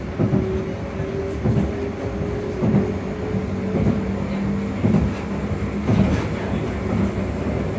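Tram traction motors heard from inside the car: a steady motor whine that rises slightly in pitch over the first few seconds, over a running rumble with regular knocks about once a second.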